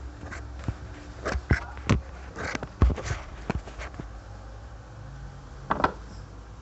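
Sharp metallic clicks and knocks of a tool working the pulley bolt on a Brastemp washing machine's cam-kit mechanism, loosening the bolt slightly so the pulley stops rubbing on the cam. A low steady hum comes in about five seconds in.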